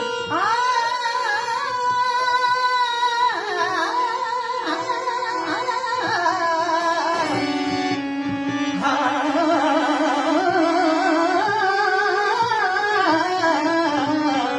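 Devotional kirtan singing by a male kirtankar: a long, high held note that wavers, then shorter ornamented phrases. Steady sustained instrumental notes accompany the voice throughout.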